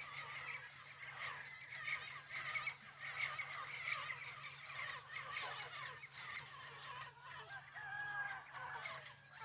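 Dawn chorus of many birds calling over one another, with a few longer pitched calls about eight seconds in.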